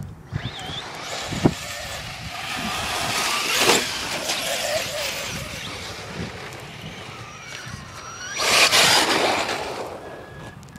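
Radio-controlled truck motor whining as it drives, its pitch rising and falling with the throttle. There is a louder rushing burst about three-quarters of the way through.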